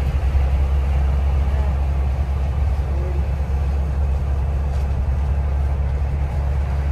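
Steady low rumble of a Higer coach's engine and tyres, heard from inside the cabin while cruising on a motorway.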